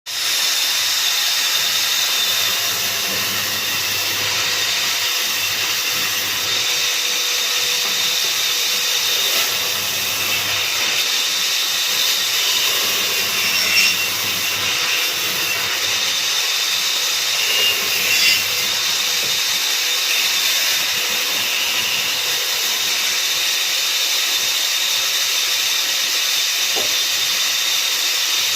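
A woodworking machine running steadily with a hissing whine, with a couple of brief louder moments about halfway through.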